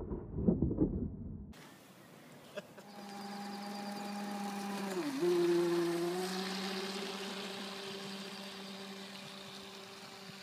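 A loud rumbling noise, cut off after about a second and a half. Then the HBX Wildseeker remote-controlled speedboat's motor sets in with a steady whine. It dips sharply in pitch for a moment about halfway through, then holds steady and slowly fades as the boat runs away across the water.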